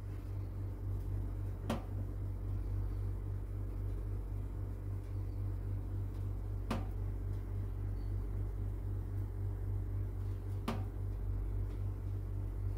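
Oven running with a steady low hum while a tray of almond-topped crackers bakes, with three sharp clicks spaced about four to five seconds apart.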